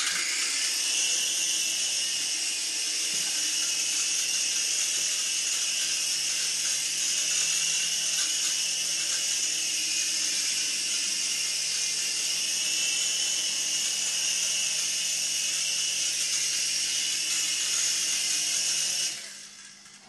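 Small iRemoco remote-control toy helicopter's electric motors and rotor blades running in flight: a steady high-pitched whine that starts abruptly and dies away near the end.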